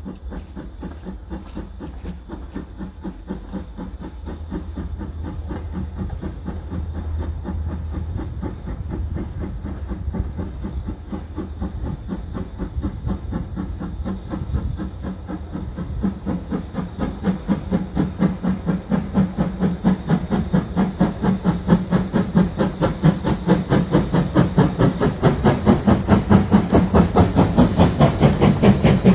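Steam locomotive working a goods train, its exhaust chuffing in an even rhythm that grows steadily louder as it approaches. Near the end it comes close, with hissing steam.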